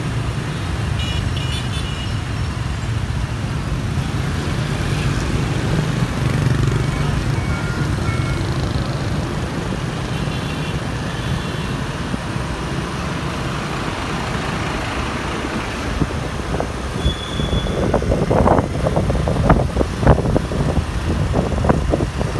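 Motorbike traffic heard from a moving scooter: steady engine hum and road noise throughout, with a few brief high tones in the first half. In the last few seconds there is irregular crackling and buffeting.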